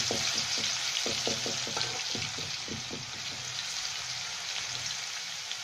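Garlic-ginger paste sizzling in hot oil in a wok, stirred with a metal slotted spoon. Small crackles run through the first few seconds over a steady hiss.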